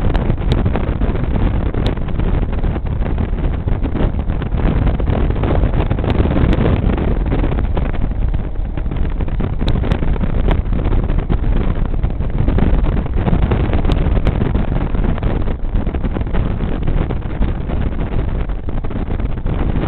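Steady rush of riding wind over the microphone of a motorcycle-mounted camera, with the motorcycle's engine and road noise blended underneath as a continuous low rumble.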